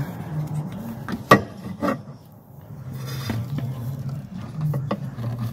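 Rubbing and scraping of a metal EGR cooler and its hoses being worked by hand into a cramped engine bay, with a few sharp knocks as it bumps against engine parts, the loudest about a second in.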